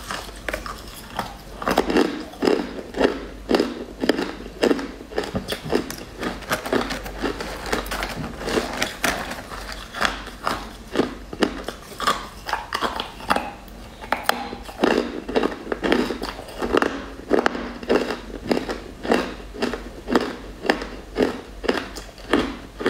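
Close-up crunching as chunks of sugar-coated purple crystal candy are bitten and chewed: rapid, sharp crunches, several a second, coming in runs.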